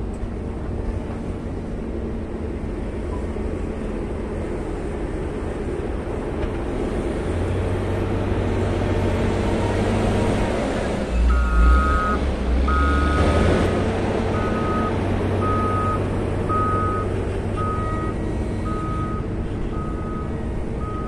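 Caterpillar 140M motor grader's diesel engine running steadily, louder and deeper as the machine passes close by about halfway through. Then its reversing alarm starts beeping, about once a second, as the grader backs up.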